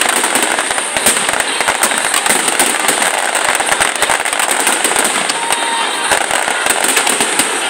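Aerial fireworks bursting in quick succession, with dense crackling from the stars: a continuous run of sharp pops and crackles that never lets up.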